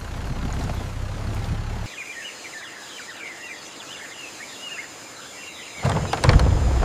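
A vehicle engine rumbles low and steady, then cuts off abruptly about two seconds in. Birds chirp over quiet jungle ambience after that, and a sudden loud clattering sound starts near the end.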